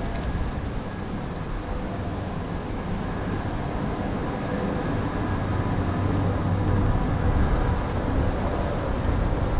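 A low engine rumble with faint steady tones, growing gradually louder.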